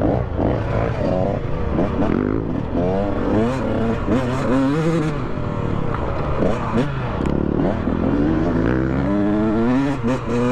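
Dirt bike engine revving up and down over and over, the pitch climbing and dropping every second or two as the throttle is worked.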